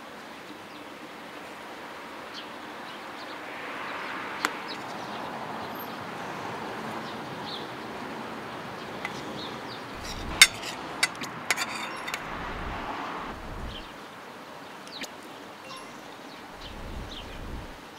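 A spoon clinks and scrapes against a metal plate several times, most often about two thirds of the way through. Under it is the steady rising and fading noise of a car passing at a distance.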